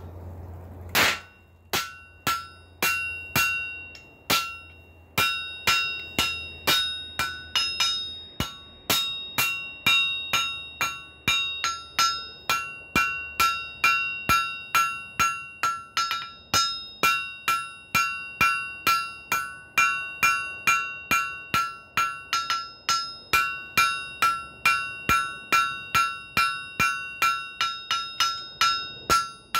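Hand hammer striking white-hot folded flat bar on a steel anvil, about two blows a second from about a second in, each blow ringing out clearly. The blows are setting the forge weld between the folded layers and forging the piece down.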